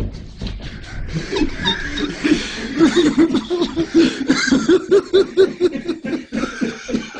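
Person laughing: a run of short, repeated laughs, about three a second, through the middle.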